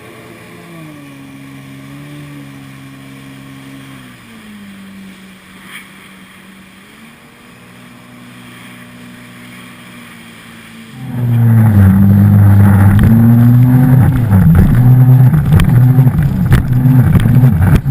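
Jet ski engine running at low speed with a steady hum, then about eleven seconds in it opens up loudly, its pitch rising and falling with the throttle over wind and water spray noise.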